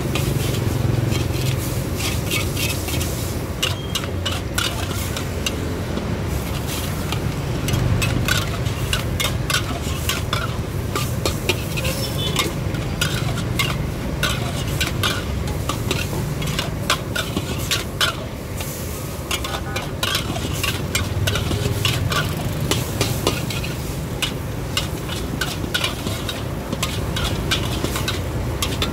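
Metal spatula scraping and clanking against a steel wok as noodles and greens are stir-fried, with irregular rapid strokes over the sizzle of the frying food. A steady low rumble runs underneath.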